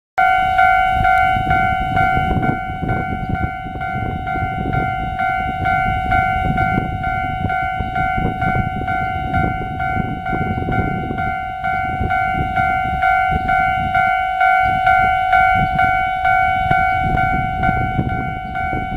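Railway level-crossing warning bell ringing, a steady metallic ding repeated at an even quick rate, warning of a train approaching on the line. A loud low rushing noise runs underneath.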